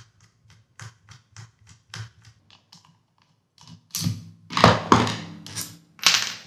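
Torx T25 screwdriver backing a screw out of a Garen motor's stator housing: a run of light, regular clicks about four a second, then a few louder knocks and scrapes from about four seconds in as the tool and parts are handled on the bench.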